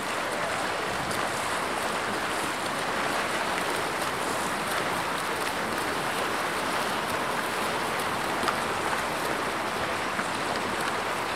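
Steady splashing and churning of water from water polo players swimming hard across the pool, an even hiss with one small knock about eight seconds in.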